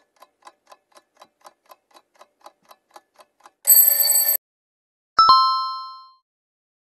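Quiz countdown sound effects: a clock ticking about four times a second, then a brief alarm-clock bell ring about three and a half seconds in, then a single two-tone ding marking the correct answer.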